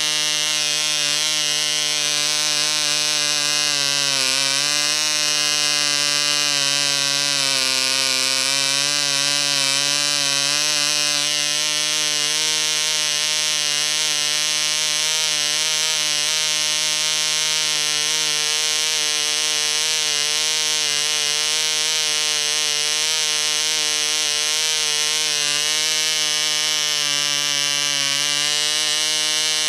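P.A.W. 1.49 cc two-stroke model diesel (compression-ignition) engine running at high speed, about 17,000 rpm, with a steady buzzing note. Its pitch dips briefly and recovers a few times as the compression screw is adjusted.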